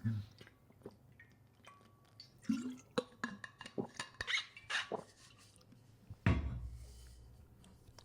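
Scattered light clicks of a computer keyboard and mouse, bunched in the middle, then a single low dull thump about six seconds in.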